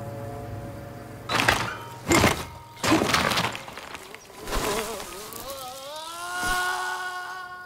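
Three loud crashing thuds about a second apart, then a wavering pitched cry that rises and is held steady as the cartoon mountain biker is thrown off his bike and flies through the air.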